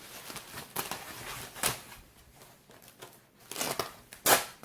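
Packaging being handled: rustling and crinkling of wrapping, in a few short bursts with the loudest near the end.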